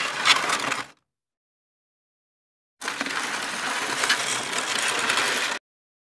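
Outro title-card sound effects: a short scratchy, rattling noise about a second long, then after about two seconds of silence a steadier scratchy noise lasting nearly three seconds.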